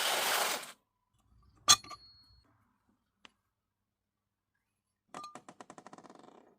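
Small metal tools or parts handled on a hard surface. A short hiss comes first, then one sharp metallic clink with a brief ring, a faint tick, and near the end a quick run of small clicks lasting about a second and a half.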